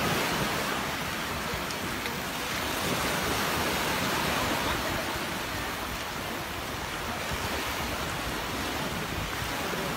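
Small waves breaking and washing up a sandy beach's shallows: a steady rush of surf that swells a little around the middle.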